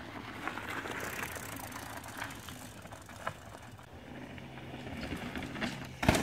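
Mountain bikes riding over a dirt trail: tyre noise on dirt and dry leaves, with scattered clicks and rattles from the bikes. A louder burst near the end as a rider passes close by.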